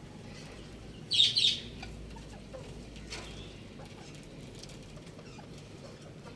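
A single short, loud, high-pitched sound from the chickens about a second in, over a low steady background.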